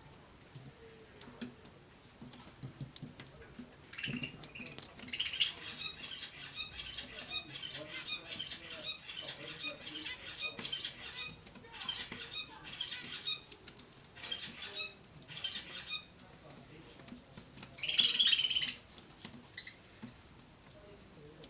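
Zebra finch chicks begging: a fast, continuous run of high-pitched cheeping calls lasting about twelve seconds, typical of chicks being fed. A short loud burst of sound comes near the end.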